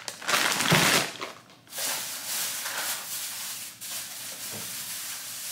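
Plastic crinkling and rustling. A frozen hash brown bag is handled noisily for about the first second and a half, then plastic shopping bags rustle more softly as groceries are taken out of them.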